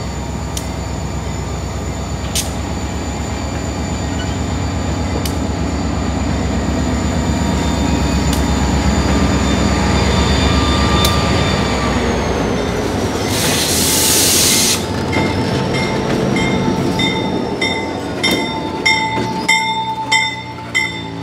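Diesel freight locomotives passing close by, engines rumbling with a steady high wheel squeal. A brief loud hiss comes about two-thirds of the way through. As the train clears, the grade-crossing bell rings about twice a second.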